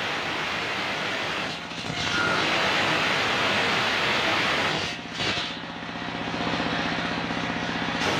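A large table circular saw, driven by an engine, rips lengthwise through a coconut-palm log, making a loud, noisy cutting sound for about three seconds. About five seconds in, the blade runs free and the engine's steady drone comes through, and the cut starts again right at the end.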